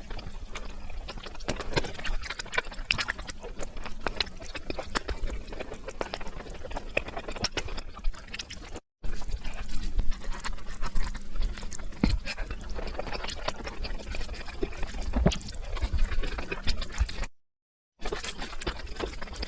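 Eating sounds sped up to four times speed: dense, rapid wet chewing and mouth clicks of someone eating a brinjal (eggplant) dish. The sound cuts out to dead silence twice, briefly about nine seconds in and for under a second near the end, where clips are joined.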